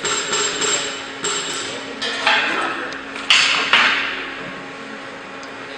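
Hammer blows on steel: a quick run of knocks, then a few louder strikes about two to four seconds in that ring out briefly, over a steady low hum.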